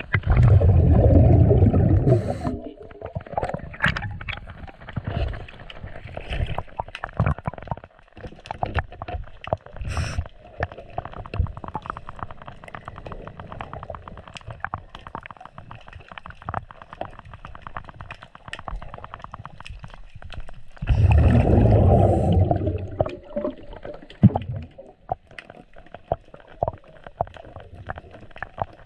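Heard underwater: a scuba diver's exhaled bubbles rush out twice, at the start and again about three-quarters of the way through. In between come many small clicks and ticks as a wrench works a bolt on a Volvo sterndrive's zinc anode.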